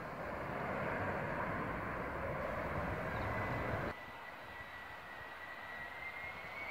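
Jet airliner engine noise: a Boeing 737-800's CFM56 turbofans climbing away after takeoff, a full rushing noise with a tone slowly falling in pitch, cut off about four seconds in. Then a quieter, distant turbofan whine from a Boeing 737-400 on the runway before takeoff, a steady high tone that starts to rise near the end as the engines spool up.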